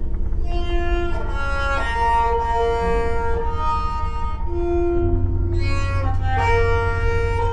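Banjo played with a bow: sustained notes, often two or three sounding together, changing pitch every second or so, over a steady low hum.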